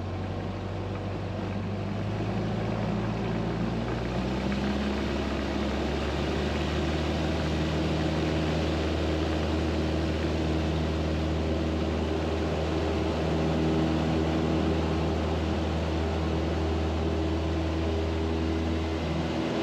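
A Cessna's single piston engine and propeller running steadily, heard from the aircraft. About four to six seconds in, the engine note rises and gets louder as power comes up, then holds steady.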